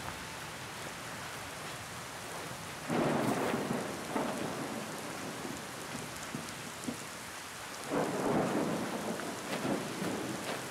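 Steady rain falling, with two louder swells of noise about three and eight seconds in.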